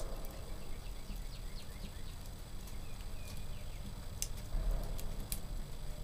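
Wood fire burning in the open firebox of an Upland wood stove, with two sharp crackling pops about four and five seconds in. Songbirds chirp faintly in the background, a run of short falling notes in the first half.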